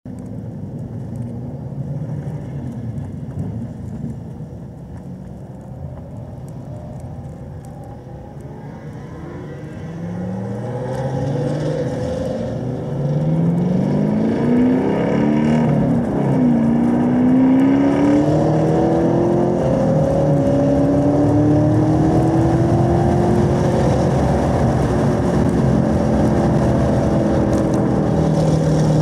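2017 Chevrolet Camaro SS 1LE's 6.2-litre V8 heard from inside its cabin. It rumbles low at crawling speed, then accelerates hard, its note rising through the revs with a gear change just past halfway, and pulls strongly near the end.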